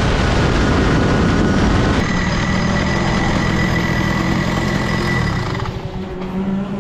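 A large vehicle engine running loudly and steadily, easing off a little near the end.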